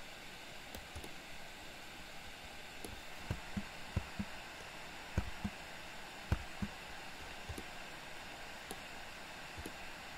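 Steady background hiss with a cluster of soft low thumps from keyboard presses, including the spacebar, and mouse clicks, about eight of them between three and seven seconds in.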